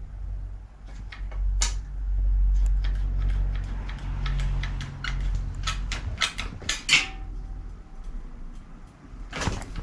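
Scattered light metallic clicks and clacks from an old bicycle side-pull caliper brake being worked by its lever, as the freshly repaired brake is tested and now works, over a low steady hum.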